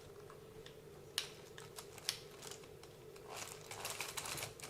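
Light clicks and rattles of a small plastic RC car being handled and turned over by hand, a couple of single clicks first, then a quicker run of clicking and rustling near the end.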